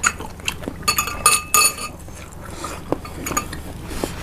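Metal spoons clinking against ceramic soup bowls: several light clinks, some with a short ringing tone, bunched between about one and two seconds in.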